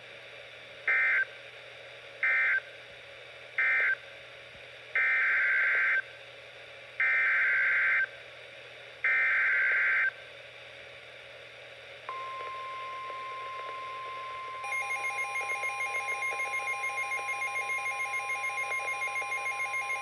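NOAA Weather Radio SAME digital tones through a Midland weather radio's speaker: three short warbling end-of-message data bursts, then three longer header bursts. Then the steady 1050 Hz weather-alert alarm tone comes on, and a few seconds later the radio's own rapid pulsing alert beep joins it.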